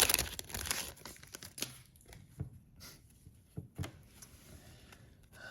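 Foil trading-card pack being torn open and crinkled for about the first two seconds, then a few light clicks and taps as the cards are handled.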